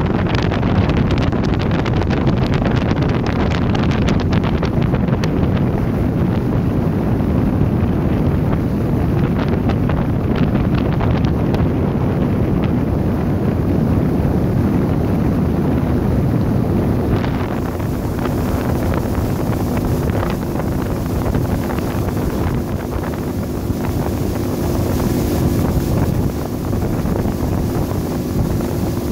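Wind buffeting the microphone on a fast-moving motorboat, a loud steady rush over the motor and water noise. About two-thirds of the way through the rush eases a little and a steady low hum comes through.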